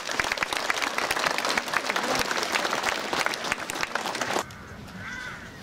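Crowd applauding outdoors: dense hand clapping that stops abruptly about four and a half seconds in.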